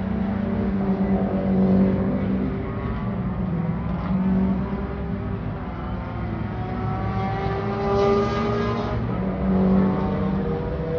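Small hatchback cars' engines running and revving as they drive off. The engine note climbs twice, then drops.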